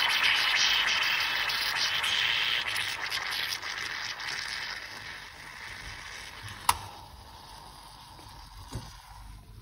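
Bialetti moka pot with a weighted pressure valve hissing and sputtering as coffee foams up into the upper chamber, the hiss fading away over the first several seconds as the brew finishes. A single sharp metallic click follows, the hinged lid being shut.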